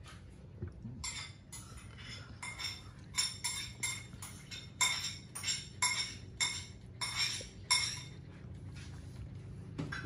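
A quick, irregular run of light clinks, two or three a second, like metal or glassware being knocked together, from about a second in until about eight seconds in, over a low steady hum.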